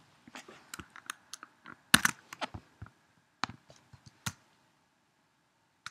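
Irregular keystrokes and clicks on a computer keyboard, about twenty taps with the loudest near two seconds in, stopping after about four and a half seconds.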